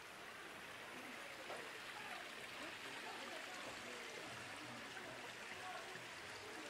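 Outdoor street ambience: a steady hiss with faint, distant voices talking.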